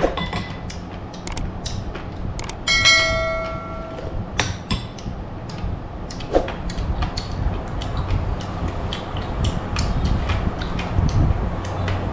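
Metal spoons clinking against ceramic bowls during a meal, with one clear clink about three seconds in that rings on for about a second.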